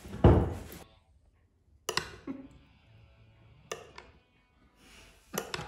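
Serving spoon knocking and clinking against a glass baking dish while portions of pastry are cut and lifted out. A dull knock about a quarter second in is the loudest sound, followed by three sharp clinks spaced a couple of seconds apart, each ringing briefly.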